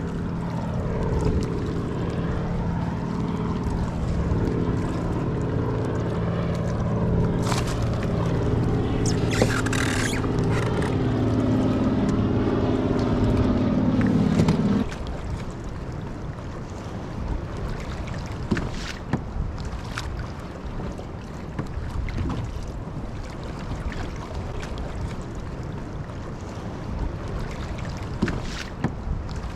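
A steady multi-tone hum cuts off suddenly about halfway through. Then wind and choppy water wash around a small fishing boat at sea, with scattered knocks and splashes.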